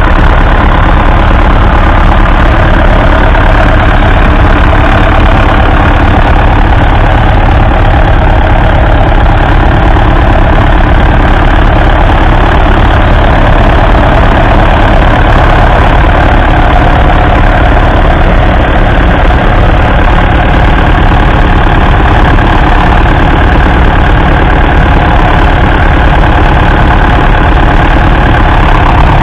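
1979 David Brown 996 tractor's 3.6-litre four-cylinder diesel engine running loud and steady under the load of a two-furrow plough.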